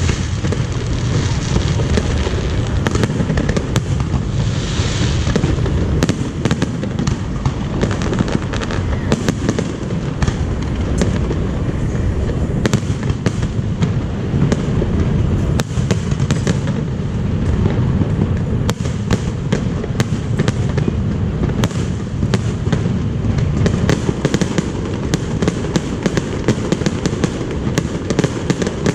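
Fireworks display: a dense, continuous barrage of sharp bangs and crackling over a steady low rumble.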